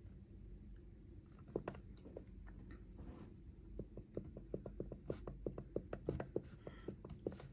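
A run of faint, short clicks and taps, a few scattered at first, then coming about four or five a second from about four seconds in.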